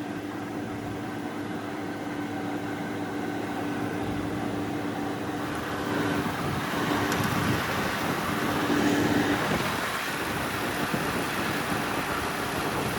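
Midea 5000 BTU window air conditioner running: fan air rushing steadily with a low steady hum that drops out about nine seconds in, the rushing growing a little louder partway through.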